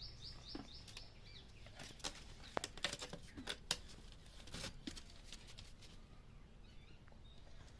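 A quick run of about eight high, short chirps from a small bird at the start. Then scattered sharp clicks and crackles, like rustling in dry nesting material, loudest between about two and five seconds in.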